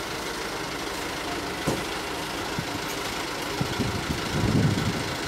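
Large truck engine running steadily at idle, with a few knocks and thumps about a third of the way in and again near the end.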